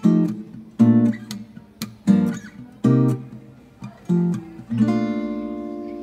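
Background music: acoustic guitar strumming chords about once a second, with the last chord left ringing near the end.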